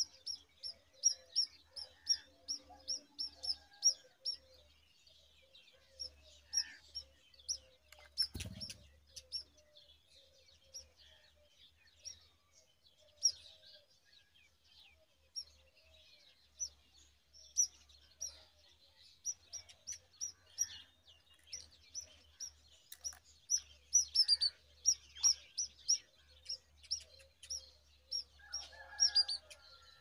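Brown rock chats chirping at the nest: a long run of short, high chirps, often about four a second, broken by pauses. A single sharp knock about eight seconds in.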